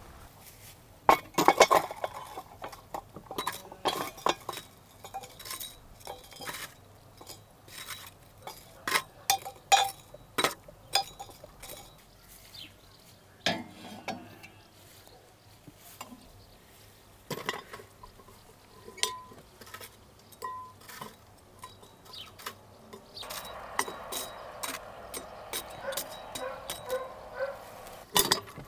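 Cooking utensils and dishes clinking and knocking: a long run of separate sharp metallic clinks and taps. Near the end there are a few seconds of continuous softer rustling noise.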